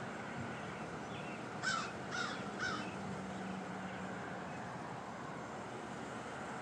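A bird giving three short, harsh cawing calls in quick succession, about half a second apart, over a steady background hum.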